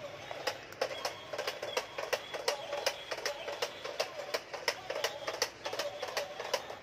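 A remote-control stunt car spinning and tumbling on a tiled floor: its plastic wheels and body clatter in a quick, irregular run of clicks and knocks.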